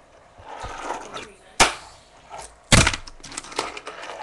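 Tech Deck fingerboard clacking on a wooden desk as it is flicked into tricks: two sharp clacks about a second apart, with a few lighter taps around them.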